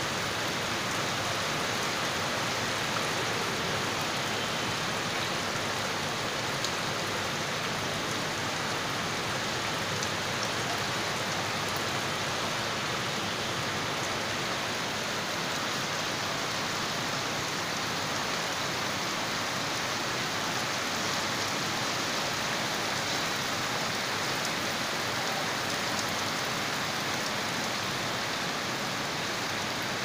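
Heavy rain pouring onto a flooded courtyard, drops spattering on standing water in a steady, even hiss.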